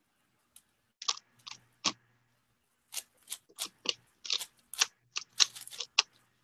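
Plastic speedcube being turned by hand: irregular clicks and clacks of its layers snapping round. A few turns come about a second in, then rapid turning from about three seconds in.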